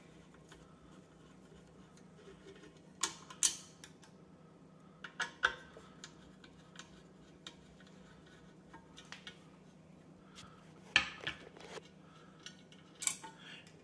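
Scattered small metallic clicks and clinks as a Phillips screwdriver works the screws out of a KitchenAid stand mixer's steel bowl clamping plate and the loosened screws are handled, over a faint steady hum.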